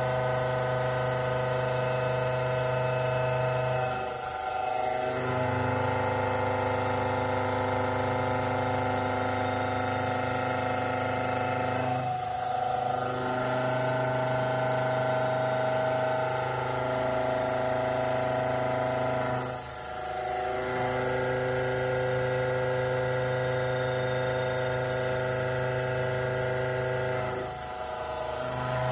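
A 2-inch indexable shoulder mill cutting 4140 steel at 1530 RPM, ramping continuously around a rectangular profile. It makes a steady pitched milling hum with overtones, which dips briefly at each corner about every eight seconds and changes pitch slightly on each new side.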